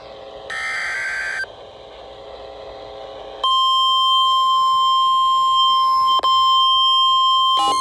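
NOAA Weather Radio EAS alert: a last one-second warbling burst of the SAME digital header, then a pause of radio hiss. About three and a half seconds in, the steady, single-pitch 1050 Hz warning alarm tone starts, marking a warning being issued. Near the end, a rapid repeating beep pattern joins the tone.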